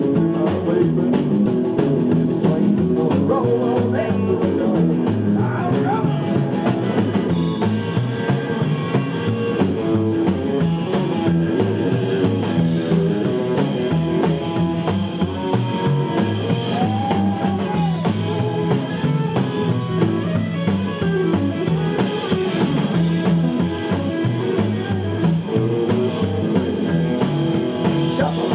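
Rockabilly band playing live: upright double bass, drum kit and electric guitars, with a steady beat.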